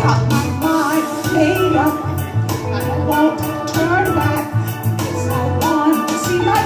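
Live singing into a microphone over a Jamaican-style backing track with bass and a steady percussion beat.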